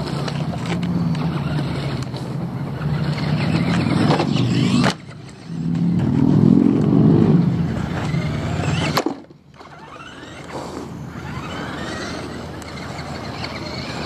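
RC desert buggy driving over concrete and gravel, its motor running and whining up and down with the throttle. The sound stops suddenly about five seconds in, comes back, and drops away sharply at about nine seconds, then goes on fainter with rising whines.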